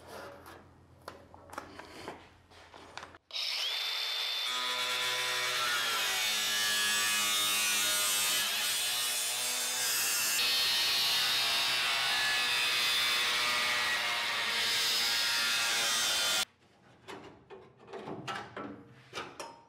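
Cordless cut-off grinder cutting through the sheet-steel core support of a Nissan R34 Skyline GT-R. It spins up about three seconds in, runs steadily for about thirteen seconds and cuts off suddenly. Light knocks and handling come before and after it.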